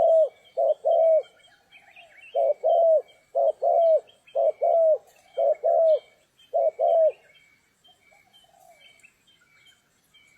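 Spotted dove cooing: a string of short, low coos in pairs, each note falling at its end, stopping about seven seconds in. A faint, regular high chirp repeats throughout.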